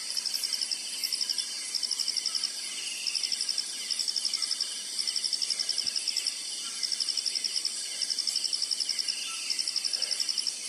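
Night chorus of forest insects: a high, fast-pulsed cricket-like trill repeating in bursts of about half a second to a second, over a steady high buzz and fainter chirps from other insects.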